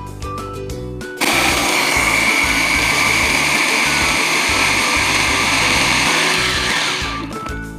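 Electric blender switching on about a second in and running steadily with a high whine for roughly six seconds, then stopping. It is most likely grinding the spice paste for the dish.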